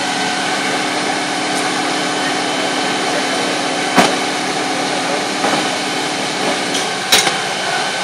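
Fire engine's engine running steadily at the scene, a continuous noise with a low hum that drops away about seven seconds in. Two sharp knocks stand out, about four seconds in and about seven seconds in.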